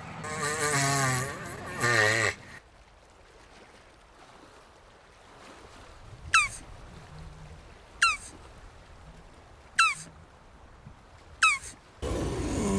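Jabuti tortoise giving a long, wavering, groan-like call at the start, then another beginning near the end. In the quiet between, four short chirps sweep downward in pitch, about one every second and a half to two seconds.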